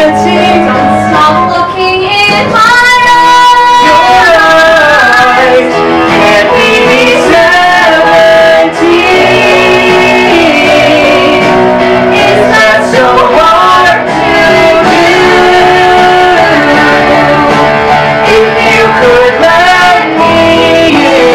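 A woman and a man singing a love duet in a musical-theatre style over instrumental accompaniment, with long held notes.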